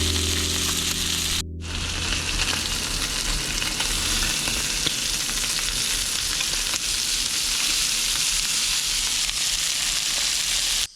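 Olive-oil-marinated lamb rack pieces searing in a pan on high heat: a steady, loud sizzle. Background music stops with a brief dropout about a second and a half in, just as the sizzling takes over.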